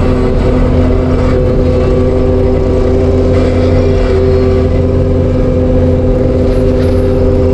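ASV RT-120F compact track loader running steadily under power, a loud, even engine-and-hydraulic drone with a few held tones.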